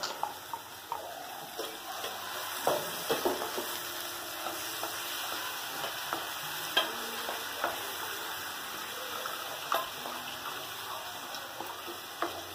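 Tomato puree and onion masala sizzling in a nonstick frying pan while a spatula stirs it, with scattered clicks and scrapes of the spatula against the pan. The tomatoes are being sautéed until cooked through.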